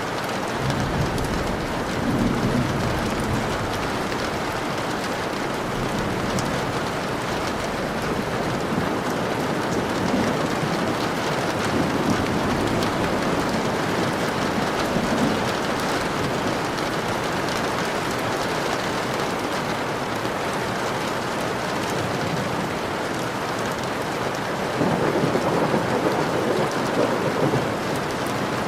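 Steady heavy rain with low rolling thunder that swells several times, most strongly near the end.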